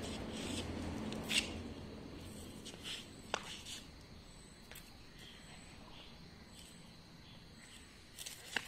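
Flip-flop footsteps and scuffs on paving tiles, with scattered light taps and clicks. It is a little louder over the first couple of seconds, then quieter.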